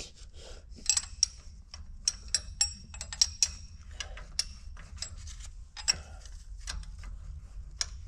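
Irregular metallic clicks and clinks of a hand wrench and gloved hands working on the fuel line fittings of a Cat 3406B diesel cylinder head, over a steady low hum.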